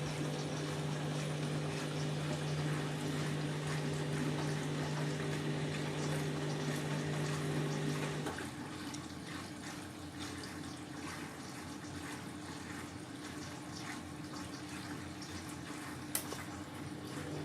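Candy washing machine filling with water on its softener rinse: water runs into the drum over a steady hum that stops about eight seconds in, and there is a single click near the end.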